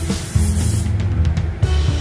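Background music with a steady beat and bass. Over it, the hiss of an air spray gun applying basecoat cuts off just under a second in.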